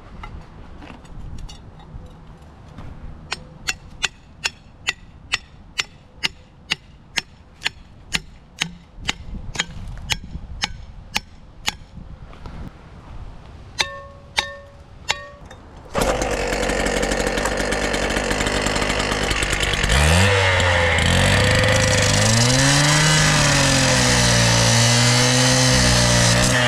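A quick run of sharp taps, about two to three a second, then three ringing metal strikes, as of a hammer working on steel. About two-thirds of the way in, a loud small gas engine comes in suddenly and runs on, its pitch rising and falling as it works under load.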